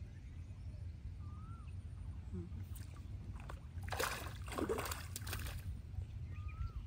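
Pond water splashing and sloshing for about a second and a half, starting about four seconds in, over a steady low outdoor rumble.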